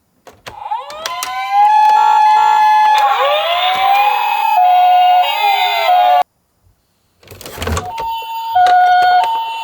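Several ambulance sirens sounding at once, overlapping each other: rising and falling wails mixed with the Japanese two-note high-low ambulance call. They cut off suddenly about six seconds in, and after a second of silence a loud thump is followed by the two-note siren starting again.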